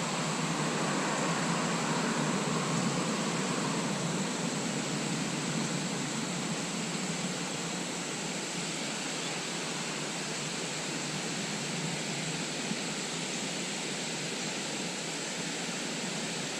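Steady rush of flowing stream water, even and unbroken, a little louder in the first few seconds.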